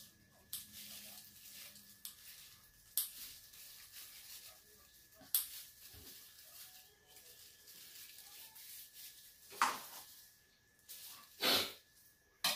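Scattered short noises of a shared meal of boiled octopus: chopsticks and a spoon knocking and scraping on a stainless-steel tray and bowl, and a plastic food glove rustling, with two louder rustling scrapes about ten and eleven and a half seconds in.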